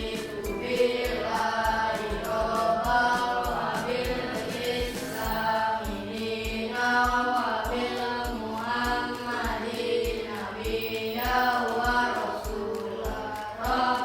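A song with singing voices over a steady beat.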